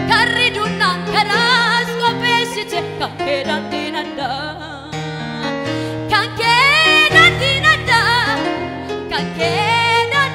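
A woman singing a gospel song into a microphone with vibrato, over electronic keyboard accompaniment of held chords and bass. A rising, held phrase a little past the middle is the loudest part.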